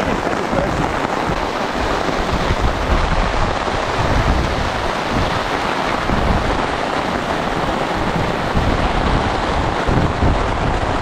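Strong wind buffeting the microphone, gusty and rumbling underneath a steady rushing noise.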